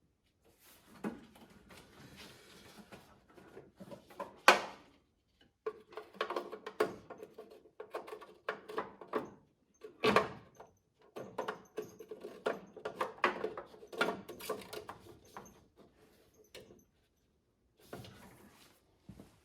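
A plastic turn signal housing being handled and pressed into place on a truck's front end: irregular clicks, rubbing and scraping of plastic, with a couple of sharper knocks about four and a half and ten seconds in.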